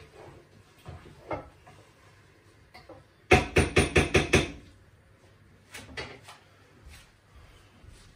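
A quick run of about six sharp kitchen knocks, like cookware clattering, about three seconds in, followed by a few fainter single knocks.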